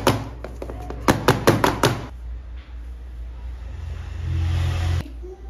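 Rapid knocking of kitchen utensils on cookware, about six sharp knocks a second in two short runs, while cake batter is being split between two baking pans. Near the end a low steady hum with a hiss rises and then cuts off suddenly.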